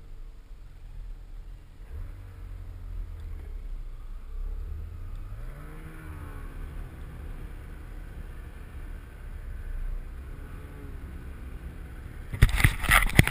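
Snowmobile engine running under way, a steady low rumble whose pitch rises and falls. Near the end, loud rough noise hits the microphone.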